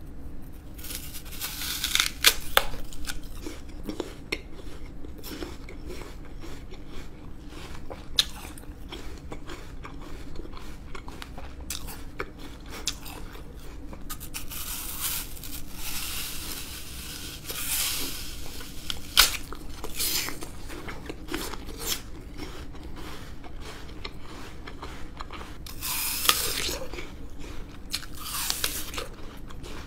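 Whole raw apple bitten into and chewed close to a microphone: crisp crunches as each bite breaks off, followed by wet chewing. Several louder bites come spread through, the sharpest about two seconds in.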